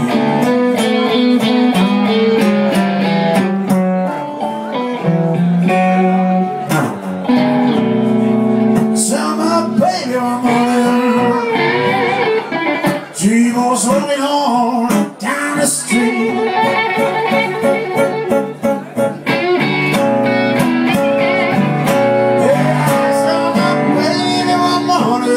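Live blues band with acoustic and electric guitars, the lead guitar bending notes up and down in pitch over the accompaniment.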